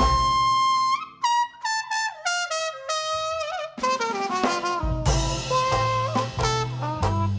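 Traditional jazz trumpet solo: a held high note, then a break of falling phrases played alone before the band's bass, drums and other horns come back in about four seconds in.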